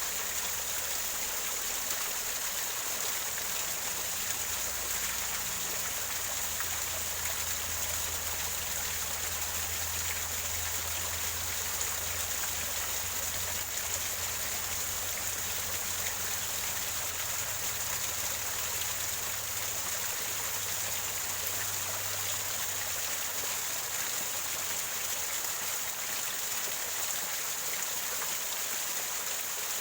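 Small waterfall gurgling and splashing over rocks into a stream: a steady, even rush of water.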